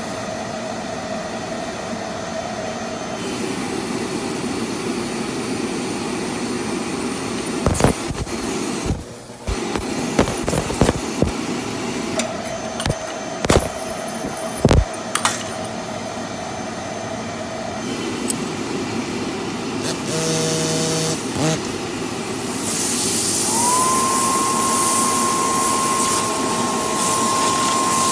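Stain-removal spotting equipment hissing steadily, with a run of sharp clicks and taps in the middle. Near the end a louder rushing hiss starts, carrying a steady whistle.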